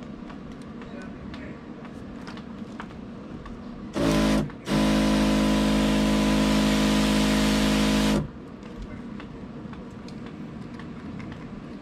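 Kawasaki 2-in-1 battery knapsack sprayer's electric pump running and forcing a hissing spray out of the nozzle: a short burst about four seconds in, a brief break, then about three and a half seconds of steady pump hum and spray hiss that cuts off suddenly. Before and after, only faint clicks of the nozzle being handled.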